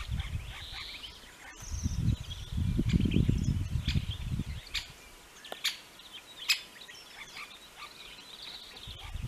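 Small birds chirping and twittering throughout, over low rumbling surges in the first half. Three sharp taps fall about a second apart in the middle.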